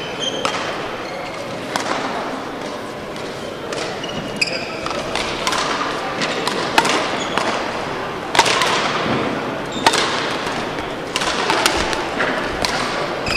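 Badminton rally: sharp racket strikes on the shuttlecock about every second or so, with brief shoe squeaks on the court floor and voices murmuring in the background.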